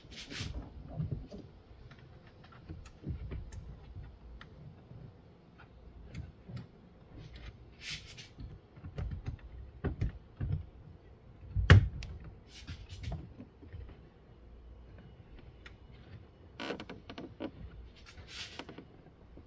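Hand-handling sounds at a car's trunk opening: scattered clicks, taps and short scraping swishes of plastic trim and taillight parts being fitted, with one sharp knock a little past the middle.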